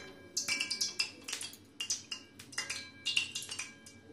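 Metal rose cake mould knocking and clinking against the metal kadai as it is reheated in the oil: irregular taps, some ringing briefly.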